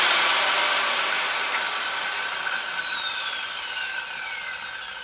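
Circular saw without a blade brake coasting down after being switched off. The motor and blade whine falls steadily in pitch and fades over several seconds, still spinning at the end: a slow stop with no braking.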